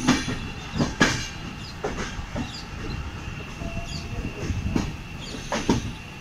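Passenger train coach rolling along the track: a steady rumble with sharp, irregular wheel clacks over the rails as it moves into a terminus station.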